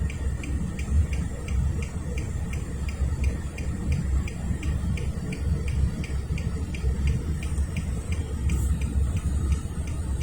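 Low steady engine rumble, the sound of an idling engine, with a fast even ticking of about four to five ticks a second over it.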